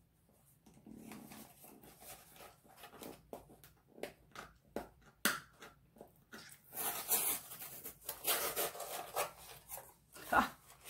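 Handling and rustling of a small gift box's packaging as it is opened. Soft crackles and short scrapes get busier and louder past the middle, with one sharper sound shortly before the end.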